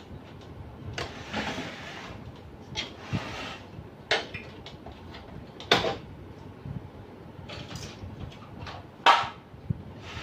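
Plastic printer housing parts being handled and pried: scraping, with scattered clicks and knocks, the loudest clicks about six and nine seconds in.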